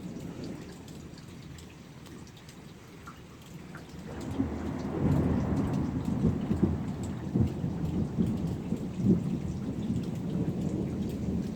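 Steady rain falling, then about four seconds in a long, low rumble of thunder builds and rolls on to the end, pulsing in strength.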